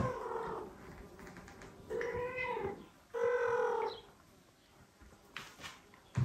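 Cats meowing: a newborn kitten's high meow trailing off at the start, then two more short meows about two and three seconds in. A soft knock comes at the very end.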